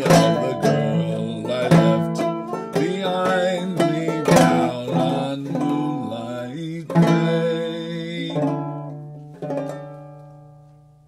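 Banjo played clawhammer style: a passage of picked notes and brushed strums, then a final strum near the end whose chord rings out and fades away.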